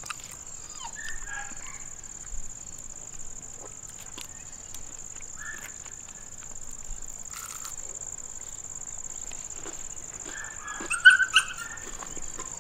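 A dog giving a few short yips, the loudest cluster near the end, over a steady high insect trill.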